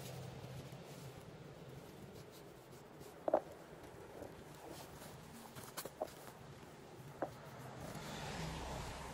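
Quiet hand-picking sounds: a few light clicks and taps on a plastic berry tub, the loudest about three seconds in, then a swell of rustling near the end.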